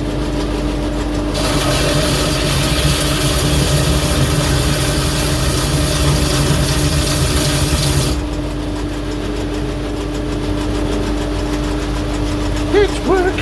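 Belt grinder motor running steadily. From about a second and a half in until about eight seconds, the abrasive belt grinds against the cast-iron anvil with a loud hiss, then cuts off, leaving the motor running on alone.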